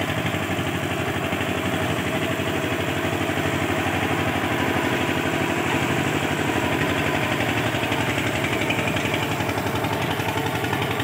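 Eicher 242 tractor's single-cylinder diesel engine running steadily with a rapid, even beat, under load as it pulls a cultivator through the soil.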